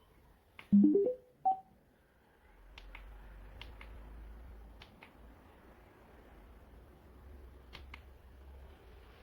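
Electronic chime from a multifunction bedside lamp-clock-speaker: a quick rising run of four or five stepped beeps, then a single higher beep, like a device powering on or confirming a mode. A few faint clicks follow.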